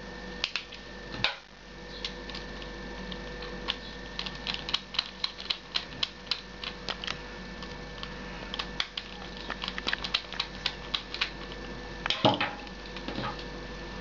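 Small Torx T7 screwdriver driving the two housing screws back into a plastic hair-clipper body: a long run of light, irregular clicks and ticks, densest in the middle, with a louder knock about twelve seconds in.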